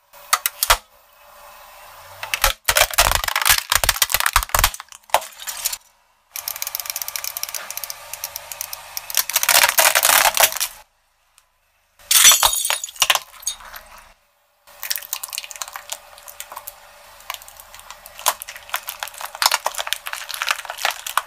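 Objects crushed one after another under a car tyre: a toy plastic ukulele, a rubber chicken toy and a red jelly. Each gives a dense run of cracking, snapping and crunching, and short silences fall between them.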